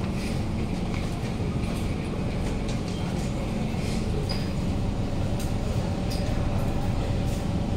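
Kawasaki C151 metro train standing at a station platform during boarding: a steady hum from the train mixed with the shuffle and bustle of passengers stepping aboard, with a few light clicks and knocks.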